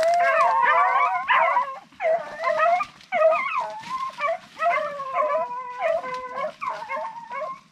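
Rabbit-hunting hounds baying together, several overlapping drawn-out calls in bursts with short breaks between them: the pack giving voice as it works a rabbit's trail.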